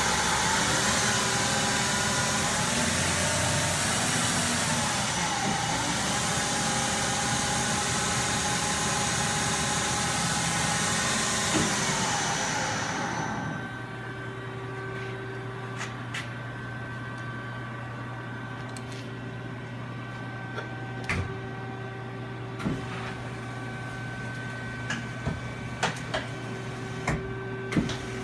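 Johnford ST-40A CNC lathe's spindle running loudly, its pitch dipping and rising, until it stops about halfway through. What remains is the machine's steady hum, with scattered sharp clicks.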